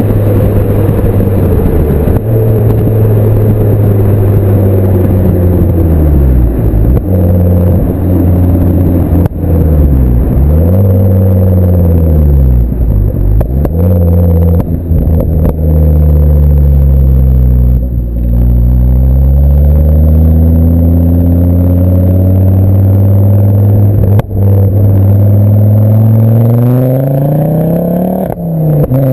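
Ford Focus RS Mk2's turbocharged 2.5-litre five-cylinder through a full Milltek exhaust with no silencers and a sport catalyst, heard close up at the back of the moving car. The revs repeatedly drop and climb again, then climb steadily for about ten seconds near the end.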